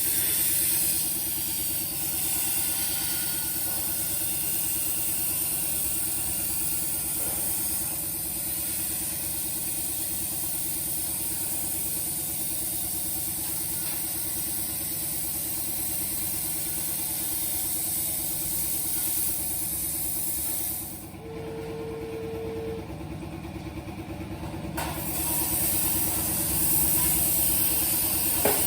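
CNC plasma cutter cutting thin 1 mm steel plate: a steady high hiss from the arc over a constant hum. About 21 seconds in the hiss stops for roughly four seconds, with a brief steady tone, then starts again.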